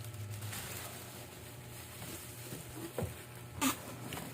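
Light handling noise from unpacking an air fryer, with two sharp knocks about three seconds in, the second the louder.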